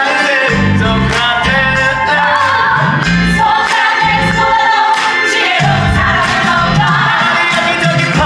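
Musical-theatre curtain-call number: several voices singing together in chorus over a band accompaniment with a steady beat.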